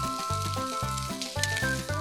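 Background music with a steady, pulsing bass beat, over meat sizzling and crackling on a grill.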